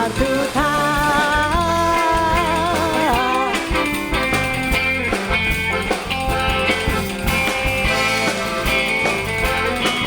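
Basque trikitixa band music: accordion with a modern rhythm section, a voice singing for the first few seconds before the band carries on without singing.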